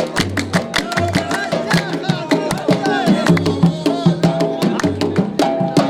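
Arabic wedding zaffa music: fast, dense drumming over repeating held notes and a melody line.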